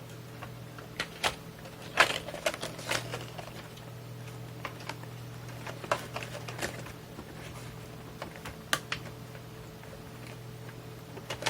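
Irregular clicks and light knocks of a circuit board and the plastic case of a Tascam Portastudio 414 MKII cassette multitrack being handled and the board seated back into place. The loudest click comes about two seconds in.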